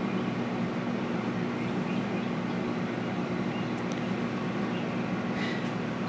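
1983 Kenmore convection microwave running on its microwave setting at full power, drawing about 1400 watts: a steady electrical hum over a constant whir.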